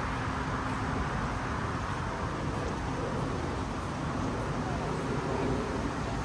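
Steady background noise with faint, indistinct voices mixed in.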